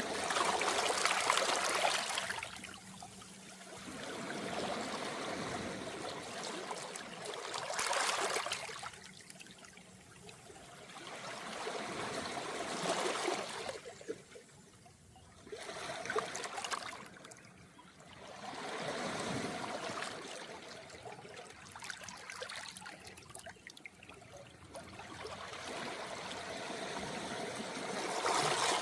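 Small, calm waves washing up a beach of round pebbles and draining back through the stones with a trickling hiss, each wash swelling and fading, about five or six in the span.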